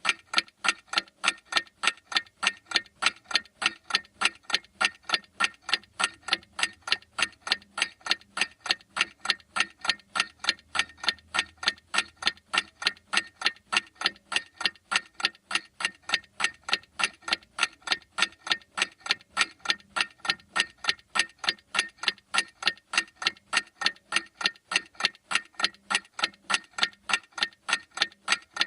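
Clock ticking: sharp, even ticks repeating at a steady rate without a break.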